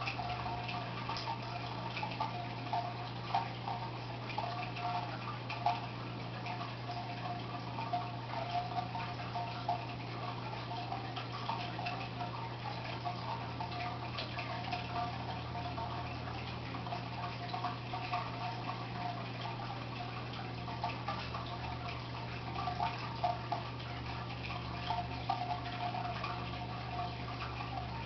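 Fish tank with its pump running: a steady low hum under water trickling and dripping in small, irregular splashes.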